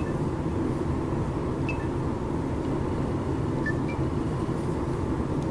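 Steady low background hum of room noise, with no speech. A few faint short high blips sound about a second and a half in and again near four seconds in.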